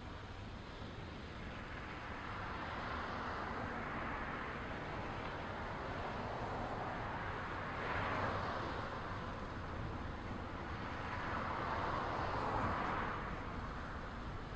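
Double-stack intermodal freight train rolling past at close range: the steady rush and rumble of steel wheels on the rails under loaded container well cars. It swells louder about eight seconds in and again near the end as wheel sets pass.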